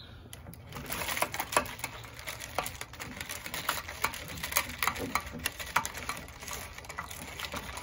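A long metal stirring spoon stirring iced coffee in a tall glass: ice cubes and spoon clinking rapidly and irregularly against the glass.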